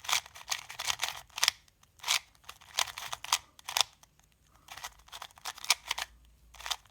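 QiYi MS magnetic 2x2 speed cube being turned fast: quick runs of sharp plastic clicks as the layers snap into place, broken by short pauses.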